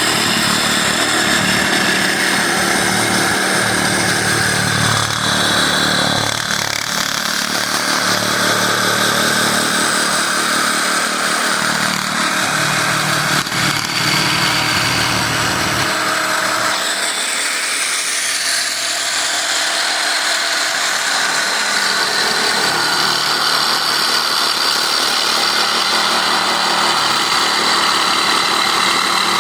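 Electric jigsaw motor running steadily under power with a continuous buzzing drone. Its low end drops out about halfway through as the sound changes.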